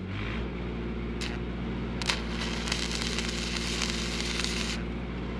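Stick-welding arc crackling as a 7014 electrode burns on steel pipe, over the steady running of a Lincoln SAE 300 engine-driven welder. The engine note changes right at the start, and the crackle turns loud about two seconds in and stops shortly before the end.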